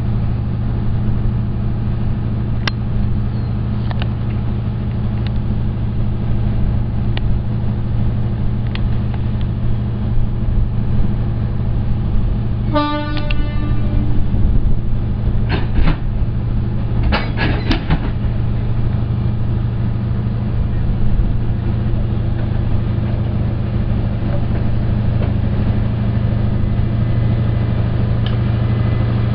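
FEVE 1900-series diesel locomotive running with a steady deep drone while shunting its coaches at walking pace. A short horn blast sounds about halfway through, followed by several sharp knocks.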